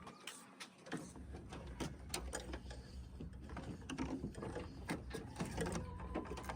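Wiring harness being pulled through a tight run behind the cowling with an electrical fish tape: irregular scraping and clicking of wire and tape against plastic and metal, over a low hum that comes in about a second in.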